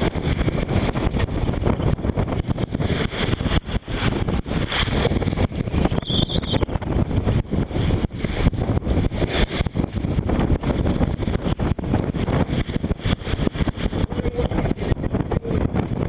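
Strong force 6 wind buffeting the microphone aboard a sailing yacht, a loud, continuous gusting rumble over rushing sea noise. There is a brief faint whistle about six seconds in.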